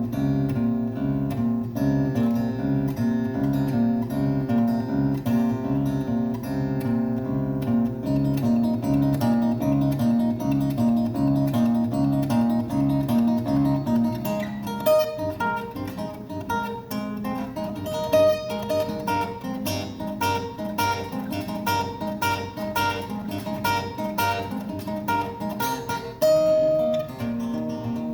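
Acoustic guitar played live. A low two-note figure repeats steadily for the first half, then the music shifts to higher picked notes over a held low note.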